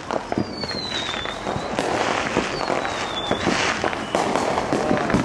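Fireworks going off all around: many bangs and crackling pops overlapping, with a few thin falling whistles.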